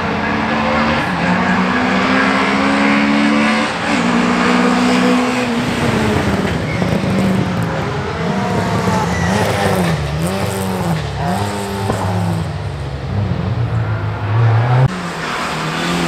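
Rally car engines at high revs going past on a tarmac stage. The note climbs in steps for the first few seconds, then swings up and down quickly several times, and drops suddenly near the end.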